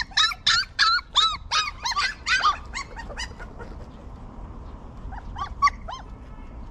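A puppy crying in a quick run of short, high whimpering yelps, about three a second, that tapers off after about three seconds; a few more yelps come about five seconds in.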